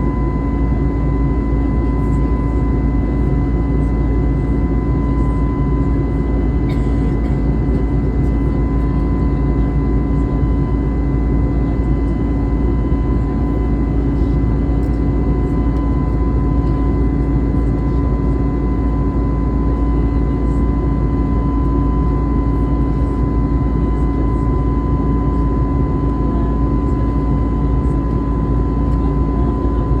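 Steady cabin noise inside an Airbus A320neo airliner in flight: a constant rush of jet engine and airflow noise with a low rumble and a thin steady whine over it.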